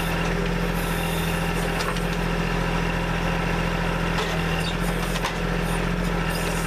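Kubota backhoe's diesel engine running steadily while digging, with a few light knocks along the way.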